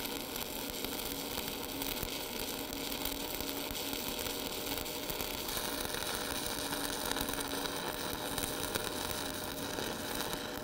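Stick (SMAW) arc welding steel plate with a 1/8-inch 7018 electrode, the arc giving a steady crackle as the final cap pass is run.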